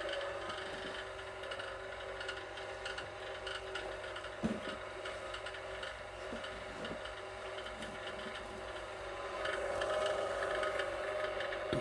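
VEVOR electric wire stripper's motor running with a steady hum, with rubbing and small clicks as wire works through the machine and a sharper knock about halfway. The hum grows louder near the end.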